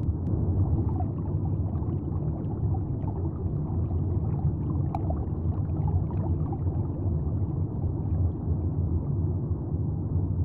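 Underwater ambience sound effect: a steady low rumble with faint bubbling and gurgling ticks scattered over it.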